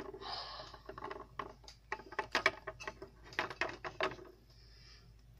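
Light, irregular taps and clicks of plastic toy figurines being handled and set down on a hard tabletop. The taps stop about four seconds in, leaving a faint hiss.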